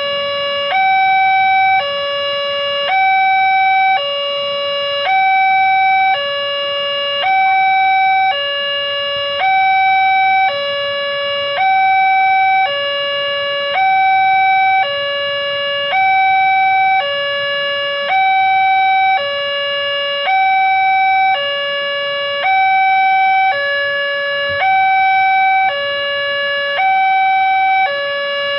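Railway level crossing warning alarm sounding from the loudspeaker on the signal post: a steady electronic two-tone signal, a higher and a lower tone alternating about once a second. It is the warning given while the barrier is down for an approaching train.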